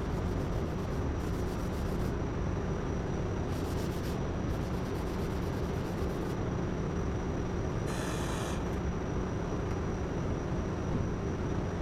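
Body filler being sanded on a car's lower quarter panel: intermittent rubbing strokes over a steady background hiss.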